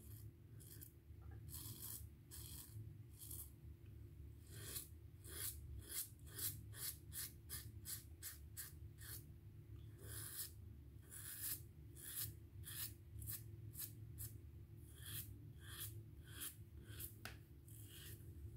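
Wet-shaving strokes on stubbled, lathered skin: a faint, irregular run of short, crisp scratchy strokes, about two a second.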